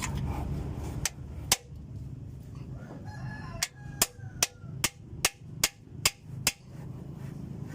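A run of sharp knocks, about two and a half a second, most likely hammer blows while the damaged cylinder liner of the Isuzu 4BC2 diesel is being knocked out, with two single knocks before them. A rooster crows once in the background partway through.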